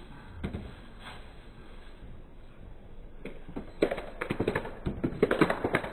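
Irregular tapping and knocking: a couple of single knocks early, then a quick, uneven run of sharper taps over the last two seconds.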